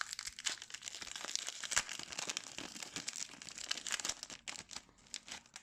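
Wrapper of an MVP hockey card pack crinkling and tearing as it is opened: a dense crackle that thins out over the last second or so.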